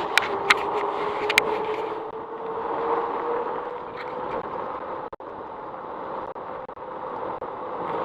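Electric bike in motion: the motor's steady whine, creeping slightly up in pitch, over rolling and wind noise, with a few sharp clicks in the first second and a half.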